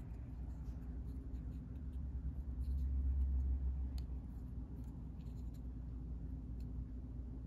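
Handling noise from fingers turning a small plastic miniature on its plastic dial base: faint, scattered small ticks and rubs, with a low rumble that swells a few seconds in.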